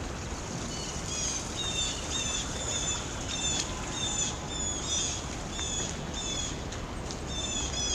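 Small birds chirping: short high chirps repeated every second or so, over a steady background hiss.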